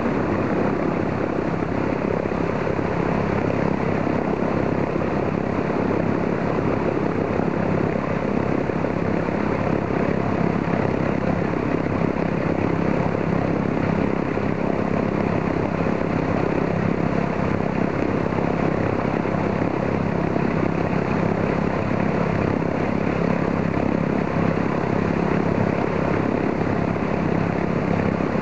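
Ilyushin Il-14's 14-cylinder Shvetsov ASh-82 radial engine idling steadily during warm-up, its propeller turning.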